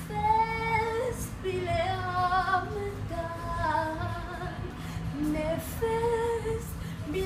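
A woman singing a melody in long held notes, sliding a little between them.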